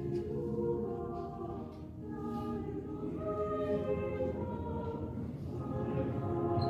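High school chamber choir singing a cappella, mixed men's and women's voices holding chords in close harmony, the chords moving every second or so.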